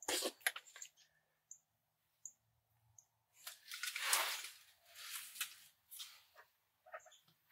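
Faint rustling and clicking handling noises inside a hunting blind, with a longer breathy rustle about four seconds in.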